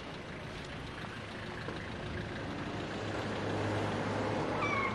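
Street traffic: motor vehicles passing on a city road. The noise of engines and tyres builds as a car drives close by near the end, with a low engine hum under it. A brief high squeal comes just before the end.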